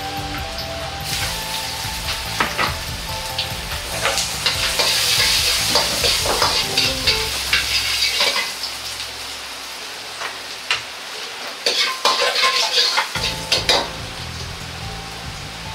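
Minced ginger, garlic and onion sizzling in a hot wok while a steel ladle stirs and scrapes them, with repeated clicks and scrapes of the ladle against the wok. The sizzling grows louder about four seconds in and eases off after about eight seconds.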